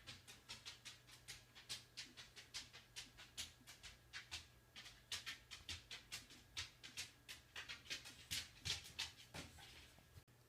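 A dog panting quickly and faintly, short breathy puffs at about three a second.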